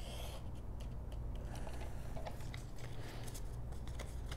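Sliding paper trimmer's blade carriage cutting through patterned cardstock, a short scrape at the start, followed by light clicks and rustles as the cut paper pieces are handled.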